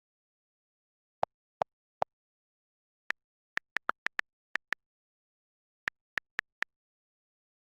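A series of about fifteen short, sharp clicks at irregular intervals, with dead silence between them. The first three are duller, and the rest are higher and crisper, bunched in quick runs.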